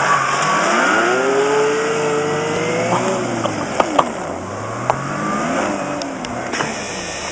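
Two-stroke Arctic Cat snowmobile engine revving hard as the sled climbs a snow drift: its pitch rises for about three seconds, drops, then rises and falls once more. A few sharp clicks near the middle.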